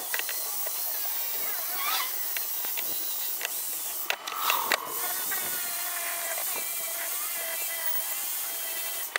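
Corded electric drill running steadily with a buffing pad, polishing a metal frying pan, the motor whining over the rub of the pad on the metal.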